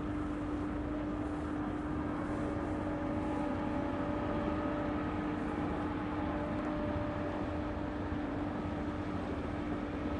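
Steady engine drone of a motorboat on the river, one constant hum that neither rises nor falls, over rough low wind and water noise.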